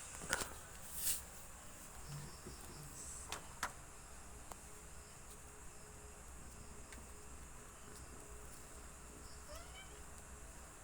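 Night insects chirring steadily, with a few sharp clicks in the first four seconds.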